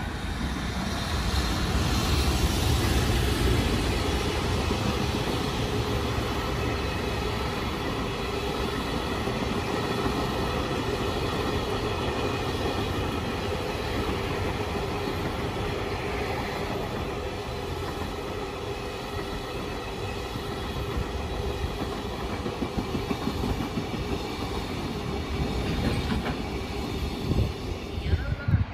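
Electric-hauled container freight train passing through: a steady rumble of wheels on rail with a faint hum, loudest a couple of seconds in as the locomotive goes by. Wagon wheels clack over rail joints, more sharply near the end as the last wagons pass.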